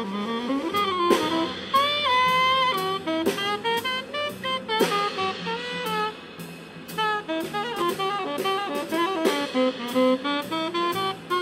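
Small street jazz combo playing: a saxophone carries the melody, with slides between notes, over drum kit with cymbal strokes and upright bass.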